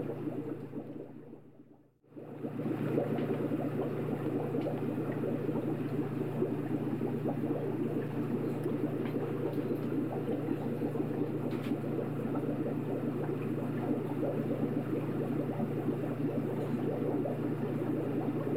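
Steady, muffled water ambience, a low bubbling rush like water heard underwater. It fades out about a second in, drops away almost completely, and comes back just after two seconds.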